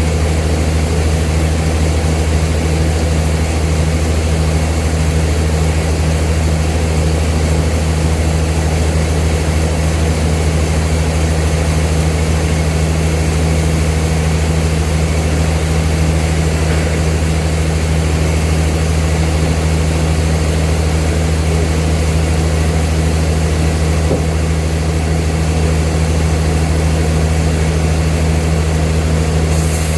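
Old sawmill's machinery running steadily with a loud, constant low drone.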